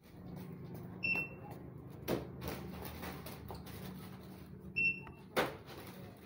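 Two short, high electronic beeps about three and a half seconds apart, like a shop's checkout beeper, over a steady low hum of shop ventilation, with two sharp knocks, the second the loudest sound.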